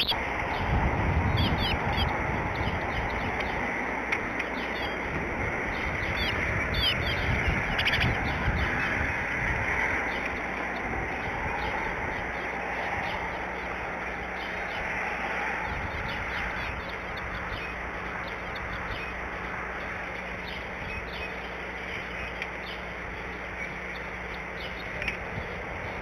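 Outdoor background of small birds chirping now and then over a steady hiss, with the chirps most frequent in the first ten seconds and a low rumble at the start.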